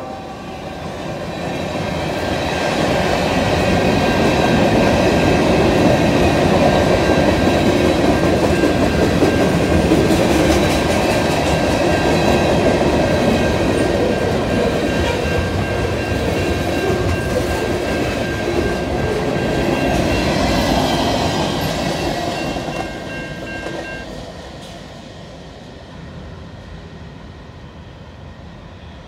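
Freight train rolling past the crossing: a steady rumble and clatter of wheels over the rails, with high, steady ringing tones over it that stop about 24 seconds in. The sound fades from about 22 seconds in as the train passes.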